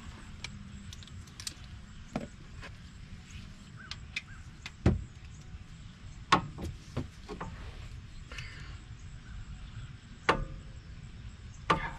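Steel hand tools clinking and clanking as a socket, extensions and ratchet are fitted together and worked onto a bolt: scattered sharp metallic knocks, the loudest about five, six, ten and twelve seconds in.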